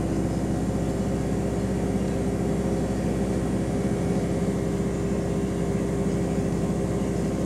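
Bus's diesel engine running steadily while the bus is under way, heard from inside the passenger saloon: an even drone with steady low tones.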